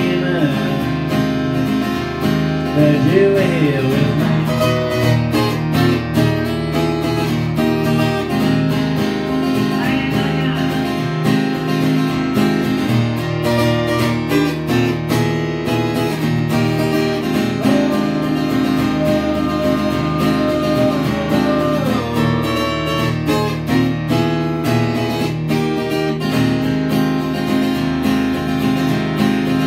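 Acoustic guitar being strummed steadily, as an instrumental passage.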